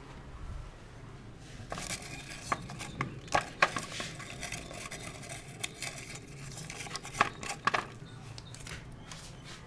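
A barber's hands working over a customer's head during a head massage: scattered sharp slaps and clicks, bunched about two to four seconds in and again about seven to eight seconds in.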